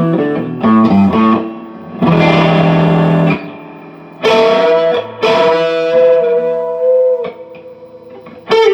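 Electric guitar with Lace Hemi Nitro humbuckers, both neck and bridge pickups on together in full humbucker mode, in phase: a run of short picked notes, then a strummed chord held for over a second, then longer ringing notes.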